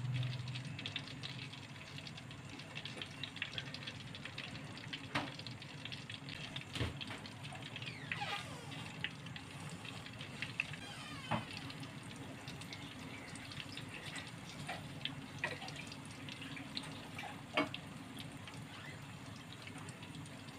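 Battered green-chili pakoras deep-frying in hot oil in a karahi: a steady sizzle and bubbling, broken by a few sharp clicks.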